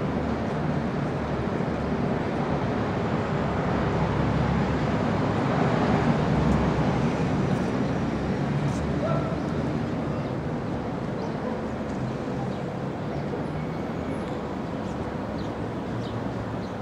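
Open-air city ambience on a paved square: a steady low traffic rumble and hum, swelling for a few seconds around the middle and easing off again.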